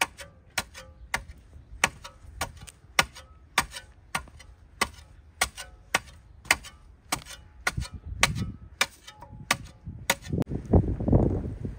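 Metal garden hoe chopping into crusted soil, sharp strikes about twice a second, stopping about ten seconds in. Near the end, wind buffets the microphone.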